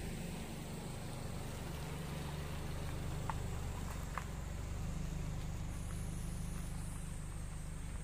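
SsangYong Tivoli compact SUV driving slowly past and away on a paved road: a steady low engine and tyre rumble, a little stronger about five seconds in.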